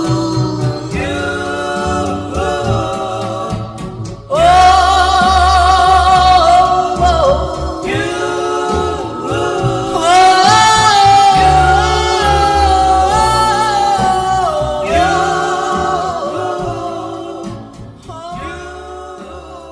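Doo-wop vocal group singing held notes in close harmony over a backing band. A loud sung entry comes about four seconds in, and a high held note about ten seconds in. Then it all fades out over the last few seconds.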